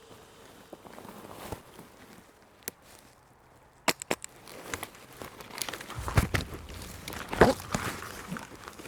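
Footsteps and rustling of clothing and gear close to the microphone, with a few sharp clicks about four seconds in and a louder scraping, crunching stretch near the end.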